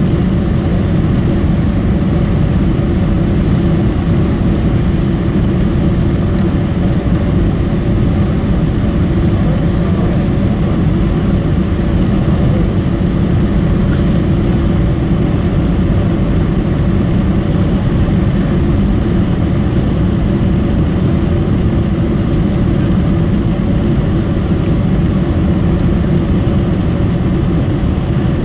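Steady cabin noise inside a Boeing 747-400 on final approach with its flaps extended. It is a loud, even low rumble of airflow and the four Rolls-Royce RB211-524 engines.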